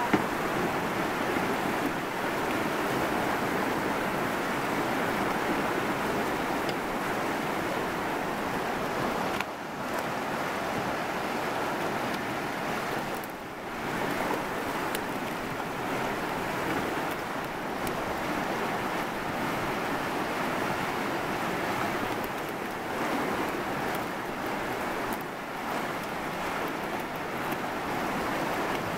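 The fast, turbulent Chilcotin River rushing steadily through its rapids, with a couple of brief dips in level.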